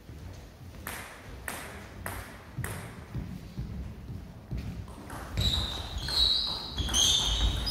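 Table tennis rally: the plastic ball clicks back and forth off the rackets and table at about two hits a second. From about five seconds in, rubber-soled shoes squeak and thud on the wooden gym floor as the players lunge.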